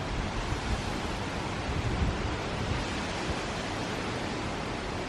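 Hurricane wind blowing steadily, a constant rushing noise with uneven low rumbling from gusts buffeting the microphone.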